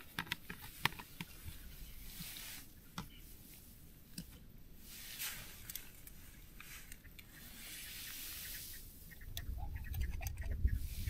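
Camping kit being handled: a few small clicks at first, then scattered rustling and rubbing. A low rumble comes in during the last couple of seconds.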